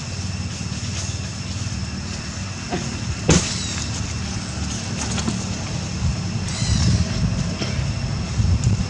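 Outdoor background noise: a steady low rumble with a faint, steady high-pitched drone over it. There is one sharp click about three seconds in, and some rustling later on.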